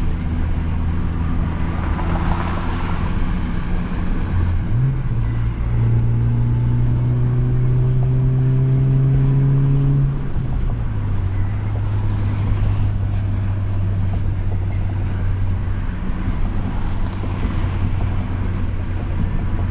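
Honda Fit's 1.5-litre four-cylinder, fitted with shorter 4.928 final drive gears, heard from inside the cabin while driving with road noise. About five seconds in the revs jump and climb steadily under acceleration for several seconds, then drop back to a steady, lower cruising drone.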